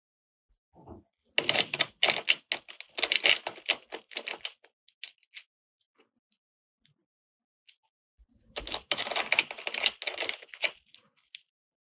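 Hard plastic toy kitchen pieces clicking and clattering as they are handled, in two bursts of rapid clicks: one starting about a second in and lasting about three seconds, the other starting about eight and a half seconds in and lasting about two seconds.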